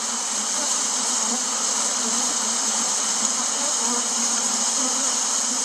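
A honeybee swarm buzzing steadily, the dense drone of many bees in flight together.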